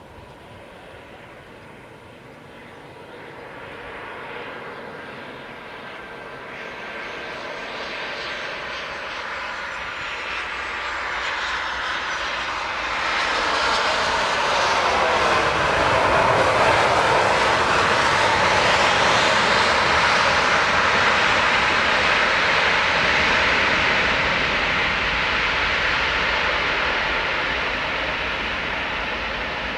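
Airliner engines growing louder over about fifteen seconds as the aircraft comes close, with a pitch that sweeps downward as it passes. A loud, steady rumble follows and eases a little near the end.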